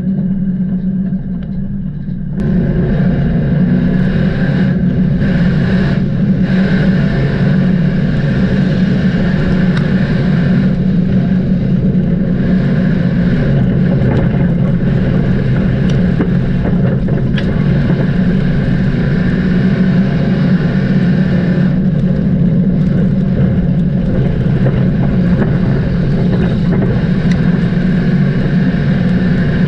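Dirt-track race car engine running hard at racing speed, loud and steady, stepping up sharply in level about two seconds in.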